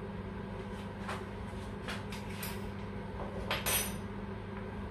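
Light clinks of a metal teaspoon against a small glass spice jar, then a louder clatter about three and a half seconds in as the jar and spoon are put down on the worktop, over a steady low hum.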